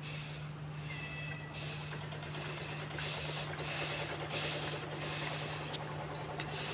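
Steady low hum with short high chirps repeating roughly twice a second.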